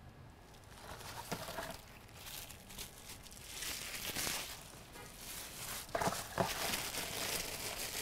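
Plastic bubble-wrap packaging crinkling and rustling as it is handled and unfolded. It starts about a second in, comes in uneven swells and is loudest near the middle.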